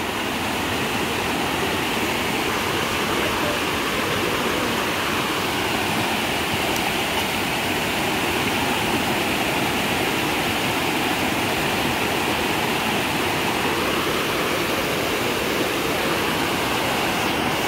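Rushing water, a steady unbroken rush with no change through the whole stretch.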